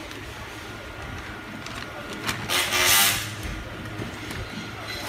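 Compressed air hissing out of a pneumatic clip tool in one burst of about a second, about two and a half seconds in, with sharp clicks just before it, over a steady low hum.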